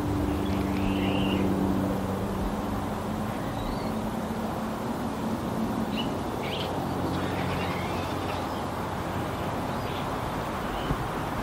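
A Cessna T206 Turbo Stationair's piston engine and propeller hums high overhead, a steady low drone that is strongest for the first few seconds and then fades. Small birds chirp now and then over a steady background hiss, and there is a single sharp click near the end.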